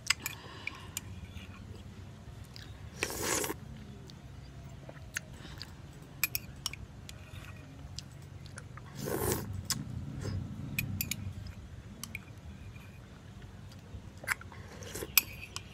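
Close-up eating sounds of someone chewing soft young coconut meat off a metal spoon: wet mouth clicks and smacks, with two longer, louder mouth sounds about three and nine seconds in.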